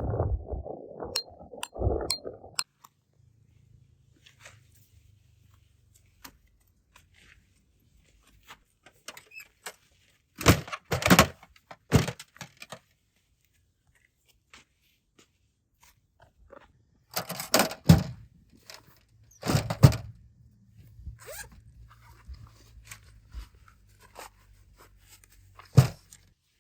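Camp gear being handled by hand: short clusters of thunks and scrapes, with metallic clinks ringing in the first couple of seconds.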